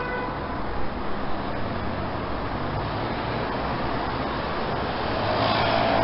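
Road traffic noise: a steady rumble of engines and tyres, growing louder about five seconds in.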